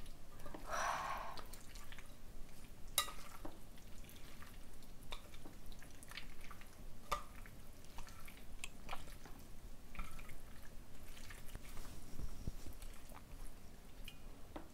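Chopsticks mixing sticky, sauce-coated Chinese glass noodles (dangmyeon) with jajang sauce and sliced cheongyang chillies in a glass bowl: irregular wet squelches and small sharp clicks.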